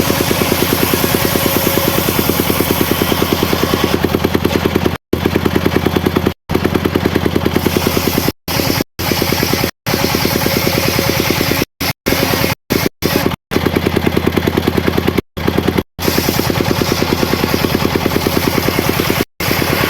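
The engine driving a homemade circular sawmill running steadily with an even, rapid pulsing beat. The sound drops out completely for split seconds about a dozen times.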